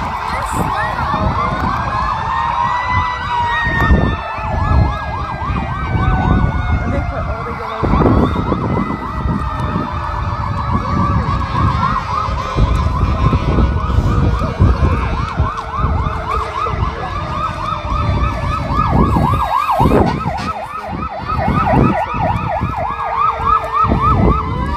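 Several fire apparatus sirens sounding at once. A slow wail rises over the first few seconds and then falls away gradually, while a rapid yelp warbles on from about eight seconds in. A low rumble runs underneath.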